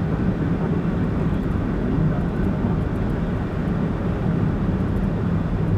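Steady road and engine noise of a car cruising, picked up by a camera mounted in the car.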